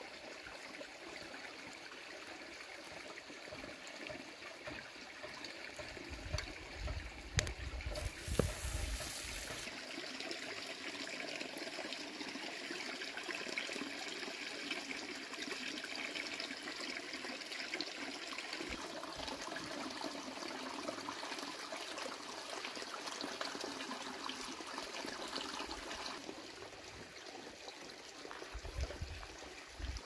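Steady trickle of running water, like a small stream, with a brief thump and rustle about eight seconds in.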